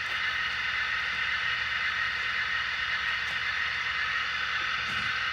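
Sound decoder of a Scale Trains Rivet Counter Union Pacific gas-turbine model locomotive playing the turbine start-up sequence: a steady high hiss from the turbine over the low idle of the A unit's Cooper-Bessemer auxiliary diesel.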